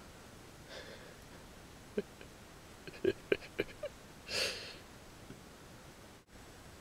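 Dog in a car seat giving one short sniff or snort, preceded by a few faint light clicks.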